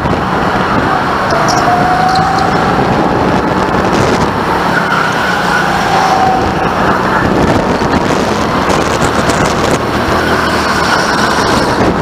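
Go-kart engine running under throttle, heard from the driver's seat with wind rushing over the onboard microphone. Two brief squeals come near 2 s and again around 6 s as the kart takes the corners.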